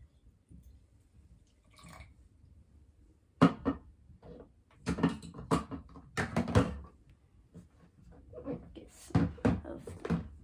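Plastic baby-bottle parts being handled and set down on a shelf: irregular clicks and knocks beginning about three seconds in, in bunches.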